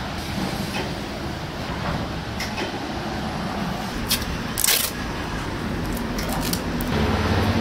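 Black adhesive tape being pulled off its roll, with a short tearing rip about four and a half seconds in and a few fainter snaps, over a steady low rumble of street noise.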